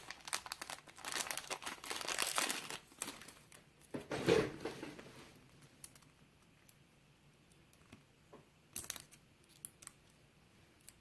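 Crinkling and rustling of a small packet as a new lock shim is pulled out of it, dense for the first few seconds with a louder rustle just after four seconds, then a few small clicks and taps.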